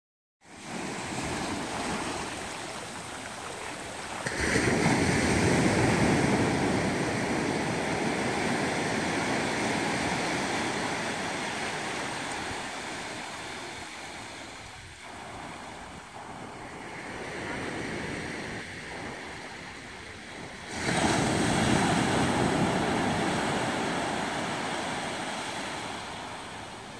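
Ocean surf breaking and washing up over sand and lava rocks: a steady rush of water, with two bigger waves surging in sharply, one about four seconds in and one near the twenty-first second, each fading slowly as the water draws back.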